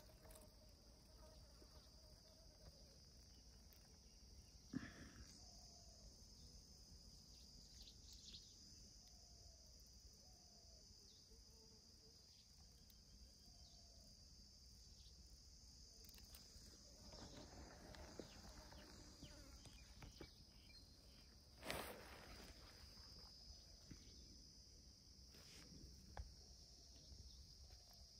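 Near silence outdoors: a faint, steady, high-pitched insect chorus, with a few faint short chirps in the first ten seconds and two sharp knocks, about five seconds in and again near twenty-two seconds.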